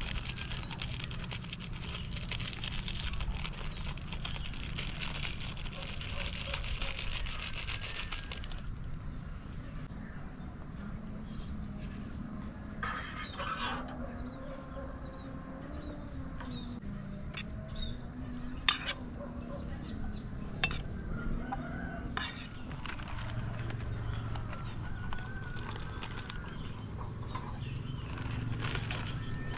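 Rural morning outdoor ambience with a rooster crowing. A steady hiss fills the first several seconds and cuts off abruptly, and a few sharp clicks follow.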